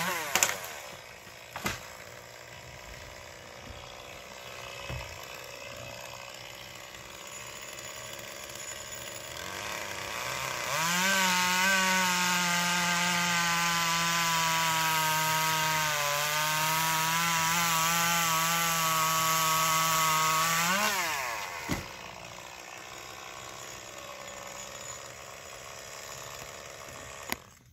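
Gas chainsaw revved up to full speed and held for about ten seconds in the middle, its pitch dipping briefly partway through, then dropping back to a quieter run. A few sharp knocks come before and after.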